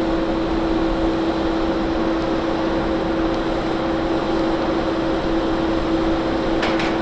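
Steady mechanical drone with a constant two-tone hum from a parked Boeing 737-800 at its stand and the ground power unit cabled to its nose. Two short ticks near the end.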